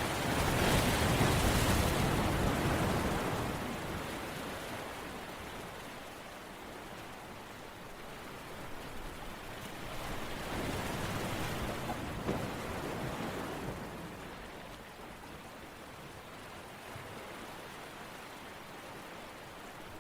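Steady rushing water noise that swells loudly in the first few seconds and again about ten seconds in, then eases.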